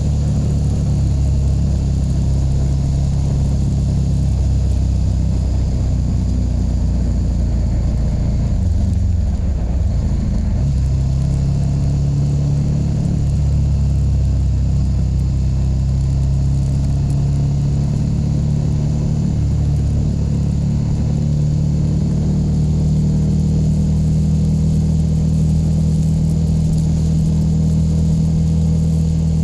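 KTM 1290 Super Duke R's V-twin engine running at fairly steady revs, its pitch dipping and shifting briefly about ten seconds in before settling again.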